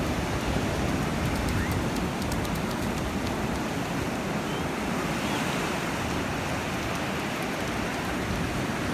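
Small surf breaking and washing up a sandy beach: a steady, even rush of waves, with some wind on the microphone.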